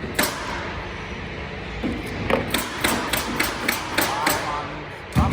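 Hammer driving nails: one sharp blow just after the start, then a quick, even run of about eight blows at roughly four a second, and a heavier thud near the end.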